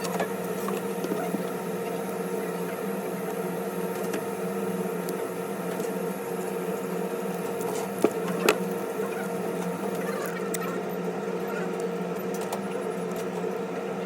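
Steady electrical hum from repair-bench equipment, with faint small scraping and tapping of tools being handled and two sharp clicks about eight seconds in.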